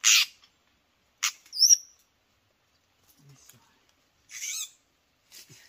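White-rumped shama calling: two short harsh calls and a quick twisting whistled note in the first two seconds, then a wavering call near the end.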